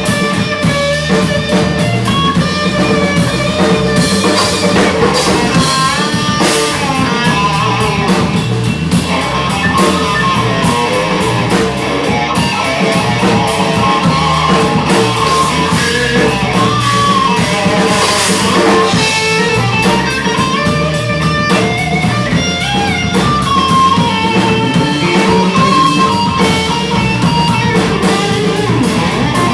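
Live rock band playing: a guitar melody with bending notes over a drum kit.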